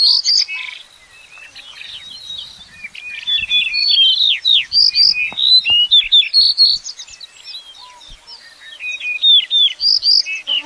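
Small birds chirping: a rapid run of high, quick chirps and down-sweeping notes, sparser for a stretch about one to three seconds in, then dense again.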